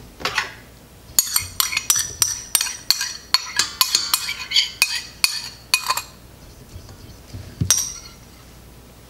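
A utensil clinking against a small ceramic bowl in a run of sharp, ringing taps, about three a second for several seconds, while beaten eggs are emptied into a stainless steel mixing bowl. One more clink comes near the end.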